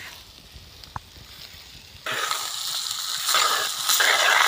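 Small nandhan fish sizzling in hot oil with onion and tomato masala in a clay pot, stirred with a spoon. The sizzling starts abruptly about two seconds in, after a quieter start with a single click.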